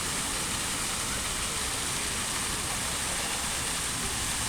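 Swann Memorial Fountain's water jets splashing steadily into the basin, an even rushing hiss.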